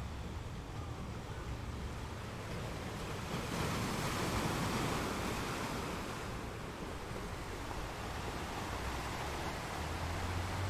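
Sea waves washing in as steady surf, with a wave surging louder about three and a half seconds in and easing off by about six seconds, over a low rumble.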